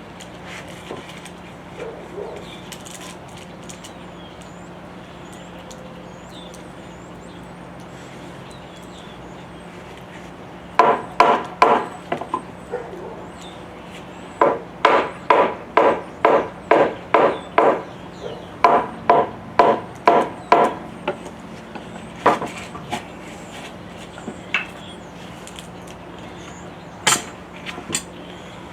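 Hammer blows on a wooden sill plate laid over anchor bolts, knocking the board down to mark the bolt positions in it. Runs of quick, even knocks, about two or three a second, begin about a third of the way in, with a few single knocks near the end.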